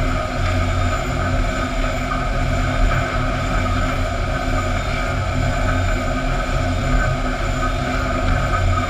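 Sawmill machinery running steadily: a continuous mechanical drone with a low hum, from the motors and chain conveyors carrying fence boards across the deck.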